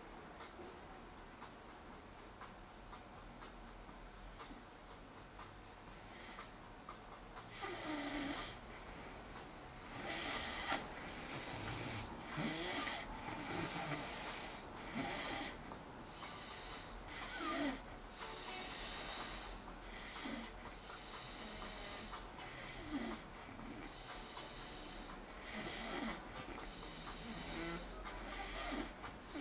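A man snoring deeply in his sleep. After several quieter seconds, loud snores come about every two seconds for the rest of the time.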